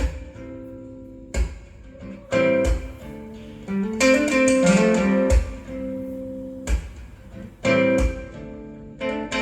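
Acoustic guitar strumming chords in an instrumental stretch of a recorded song, with a deep thump every second or so. The music is played back through hi-fi loudspeakers.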